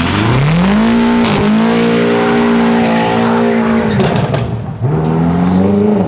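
BMW F90 M5 Competition's twin-turbo V8, its secondary catalytic converters and resonator box deleted, revving hard. The note climbs, dips for a moment, holds steady, falls away about four seconds in and climbs again near the end, with sharp exhaust cracks as it comes off the throttle.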